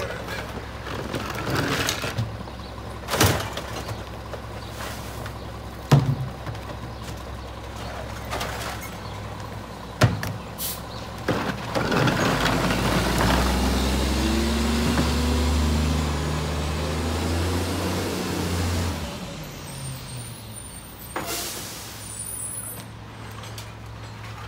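Mack MR rear-loader garbage truck's engine idling while plastic recycling bins bang against the hopper several times. Then the engine revs up and runs louder for about seven seconds, and a short air-brake hiss follows near the end.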